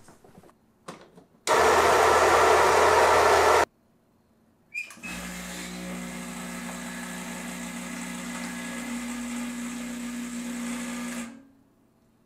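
Baratza Vario burr grinder running loud for about two seconds, grinding coffee on its new burrs at a finer setting. Then a click, and the Rocket Giotto espresso machine's pump runs with a steady hum for about six seconds as a shot is pulled, cutting off sharply near the end.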